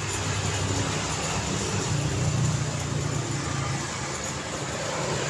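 Busy road traffic: a steady wash of passing vehicles with engine hum and tyre noise. The hum grows loudest about halfway through as a vehicle passes close, then eases off.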